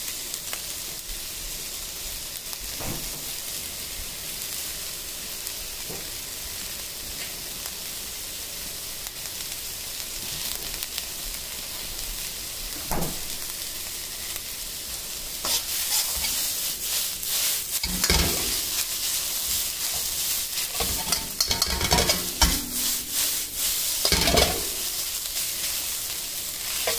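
Fried rice sizzling in an iron wok, with a steady high hiss. A few single knocks come early, and from about halfway through a metal ladle scrapes and clanks against the wok again and again as the rice is stir-fried.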